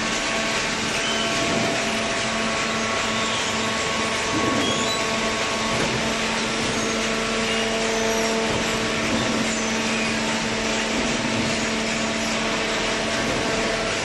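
Baling machine running with a steady mechanical drone and constant hum.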